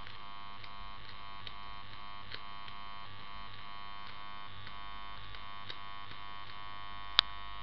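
Rewound 50 Hz mains transformer humming steadily with a buzzy edge while its secondary is short-circuited and it draws about 300 watts. Faint ticks recur about once a second, and a single sharp click comes near the end.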